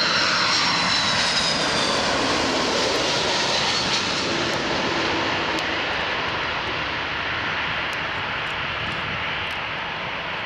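Airbus A330-300 wide-body jet on its landing approach, engines running with a dense rush and a high whine that dips slightly in pitch in the first couple of seconds as it goes past; the sound then slowly fades.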